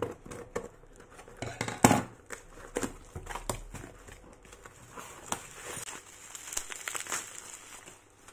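Crinkling and rustling of something being handled, with scattered small clicks and knocks; the loudest knock comes about two seconds in.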